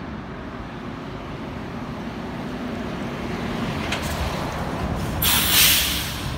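A heavy truck pulling a loaded flatbed trailer drives past, its diesel engine rumble growing steadily louder as it approaches. About five seconds in a loud hiss bursts out for most of a second as it goes by.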